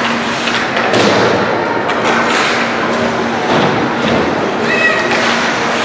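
Rink noise of a youth ice hockey game in play: a steady wash of skates and crowd noise, broken by sharp clacks of sticks and the puck.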